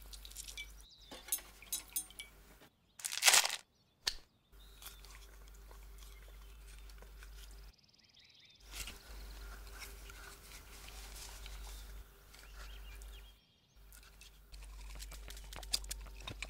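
Close-up sounds of syringe needles being pushed into a beluga sturgeon's skin and liquid injected into the flesh: soft crunching and crackling clicks in short separate stretches, with one louder burst about three seconds in.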